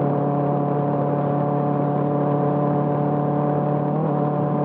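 Benelli TNT 600i's inline-four engine through an IXIL full-system exhaust, holding steady revs on light throttle: an even, unchanging drone.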